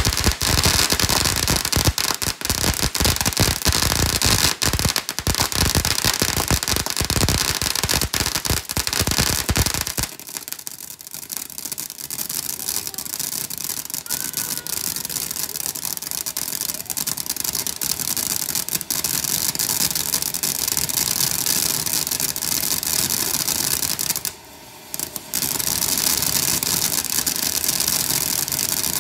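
Ground fountain firework spraying sparks. For about the first ten seconds it gives a loud, dense run of rapid crackling pops. It then settles into a steady hiss, which drops out for a moment near the end and then picks up again.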